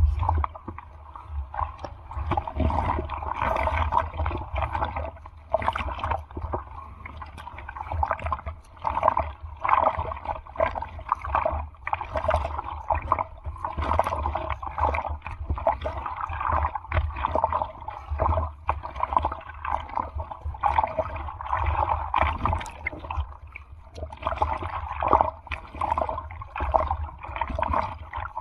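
Sea water splashing, sloshing and gurgling right against the microphone, in an irregular choppy rush over a low rumble of surf.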